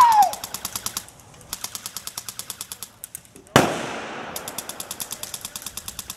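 Airsoft guns firing in rapid full-auto bursts at about ten shots a second, with short gaps between bursts. About three and a half seconds in, a single much louder bang with a lingering echo.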